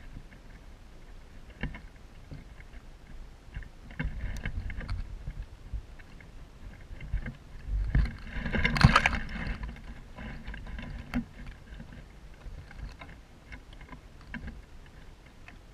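Wind rumbling on the microphone, with scattered rustles and clicks of dry twigs and grass; a louder rustling burst comes about eight to nine seconds in.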